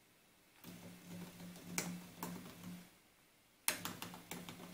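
Motor-driven Shallco rotary step attenuator switch being stepped by remote control: a low motor hum with sharp clicks as the switch snaps through its detent positions. It comes in two runs, the second starting with a sudden loud click near the end.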